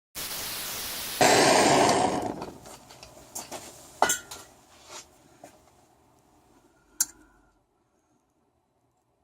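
Gas torch hissing, then a louder rush of flame about a second in that dies down over the next second or two. Several sharp metal clinks follow as the aluminium pipe pieces and tools are handled, the loudest near the end.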